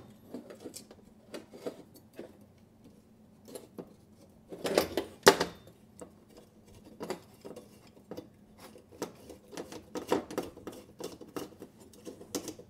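Small metal clicks and taps as nuts are turned by hand onto the screws of a gas oven igniter's metal mounting bracket, with two louder knocks about five seconds in.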